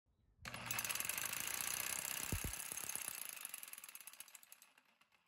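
Homemade impact and vibration test rig shaking a bolted steel-tube test piece: a fast metallic rattle starts about half a second in, with a deeper knock about two seconds in. It then fades and thins to separate clicks as the rig runs down and stops at the end of a ten-minute test run.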